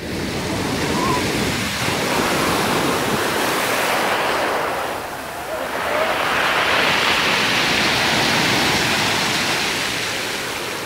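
Surf breaking on a pebble beach and washing up the shore, a continuous rush of water that eases briefly and then swells as a bigger wave surges in about six seconds in.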